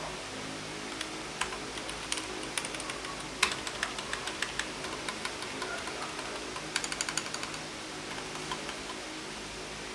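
Keystrokes on a Keychron K8 mechanical keyboard with linear red switches: scattered single key presses, with a quick run of strokes about seven seconds in.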